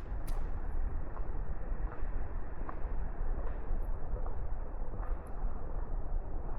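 Outdoor ambience of light rain over a steady low rumble, with faint, regular footsteps about every 0.8 seconds as someone walks.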